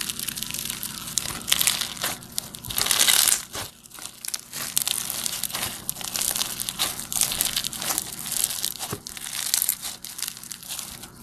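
Foam-bead slime (floam) crackling and crunching as it is stretched and squeezed between the fingers, a dense, irregular run of tiny pops that swells and fades with each squeeze.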